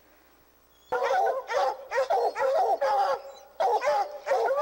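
Treeing Walker coonhounds barking at a treed mountain lion: quick, chopping barks starting about a second in, with a short break near three seconds, the tree bark that tells the hunters the cat is still up the tree.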